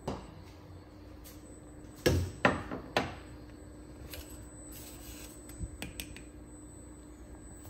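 Kitchen things being handled: a few sharp knocks in the first three seconds, then lighter clicks, over a faint steady hum.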